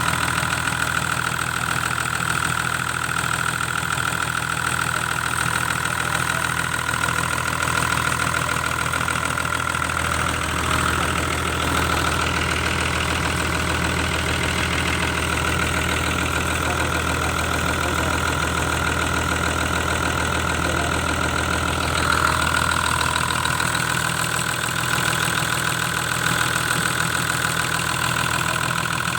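Isuzu 6BD six-cylinder diesel engine of a backhoe running steadily at idle. It has a fuller, heavier low note from about ten seconds in until about twenty-two seconds.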